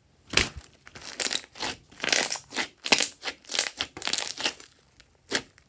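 Thick pastel pink slime being squeezed and kneaded by hand, making a quick run of squishes and pops, a dozen or more over about five seconds, with one last squish near the end.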